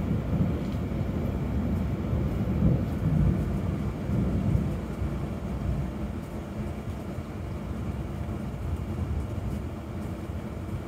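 Rolling thunder: a low, deep rumble that swells a couple of seconds in and then slowly dies away.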